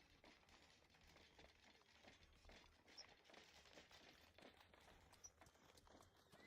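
Near silence: a faint ambient soundscape of soft scattered ticks and crackles, with a couple of tiny high chirps.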